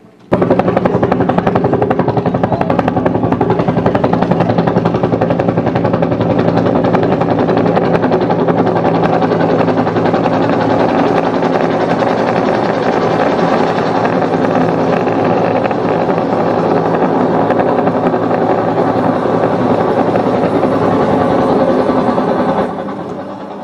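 Helicopter rotor chopping, loud and steady with a fast, even beat. It starts abruptly and fades out near the end.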